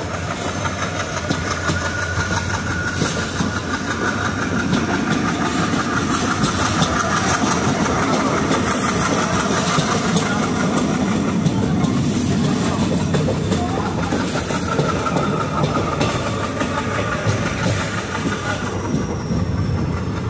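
Express train running steadily along the track, heard from inside a coach: a continuous rumble of wheels and carriage, with a faint clatter over the rail joints.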